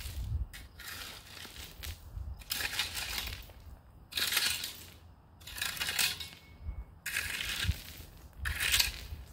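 Hand tool scraping and crunching through driveway gravel in repeated strokes, roughly one a second.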